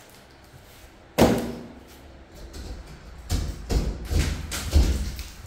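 A single sharp knock about a second in that rings off briefly, then a run of several heavier thumps and bumps over the next two seconds.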